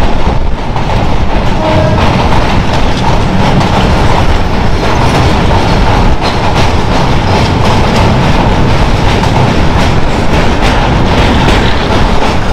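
Passenger train running at speed: a loud, steady rumble with wheels clattering over the rails.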